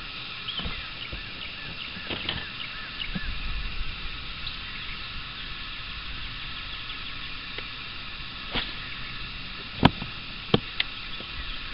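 Open-water ambience on a bass boat: a steady background hiss with faint high chirping, broken by a few sharp knocks on the boat, the loudest about ten seconds in as the angler sits down on the bow seat.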